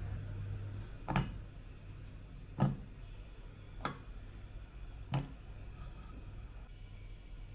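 Pieces of dark chocolate dropped one at a time into a stainless steel bowl on butter: four sharp clicks, about a second and a half apart.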